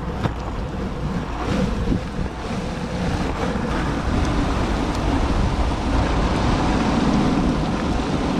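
Longboard wheels rolling over pavement with a steady rumble, and wind buffeting the microphone; it gets a little louder about three seconds in.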